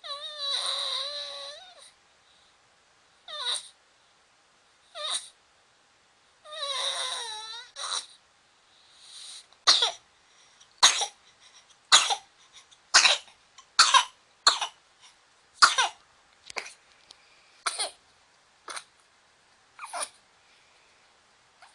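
A cat coughing: two long, wavering cries, then a string of about a dozen short, sharp hacking coughs, roughly one a second.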